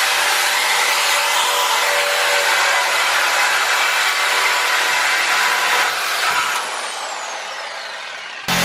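A power tool cutting through a pickup truck's exhaust pipe to remove the muffler: a loud, steady hiss. About six and a half seconds in it eases off and winds down with a falling whine.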